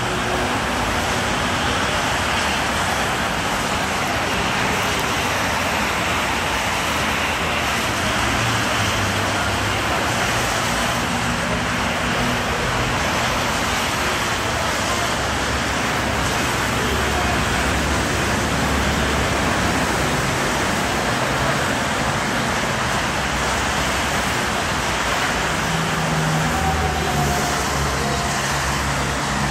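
Steady traffic noise from a busy multi-lane expressway, cars passing continuously.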